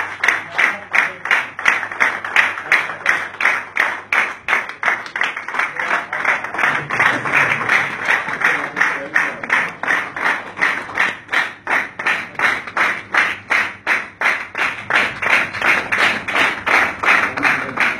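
An audience clapping in unison, a steady beat of about three to four claps a second.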